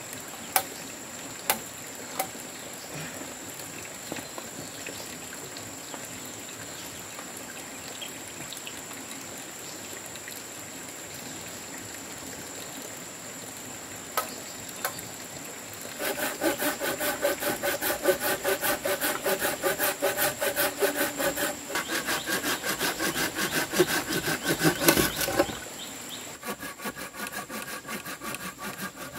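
Hand saw cutting through a squared wooden beam in rapid, regular strokes, with the blade ringing. It starts about halfway in, pauses briefly, then resumes more faintly near the end. Before the sawing there are only a few light knocks over a steady high-pitched drone.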